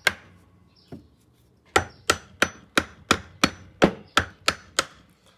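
A hand hammer striking a flat screwdriver, metal on metal, against WD-40-soaked screws in a Bosch power hammer to work them loose. One strike, a pause, then a run of about ten quick strikes, about three a second, some with a faint metallic ring.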